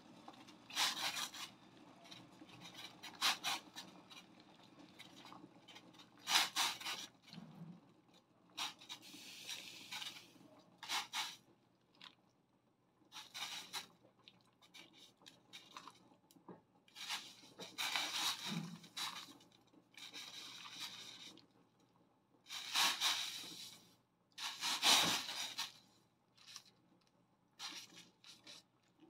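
Beef chunks parboiling in a pot of boiling water: bubbling and sputtering that comes and goes in irregular bursts, some brief and some lasting a second or two.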